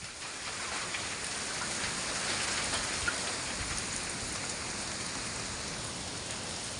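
Strong wind rushing steadily, a dense hiss that swells within the first second and then holds.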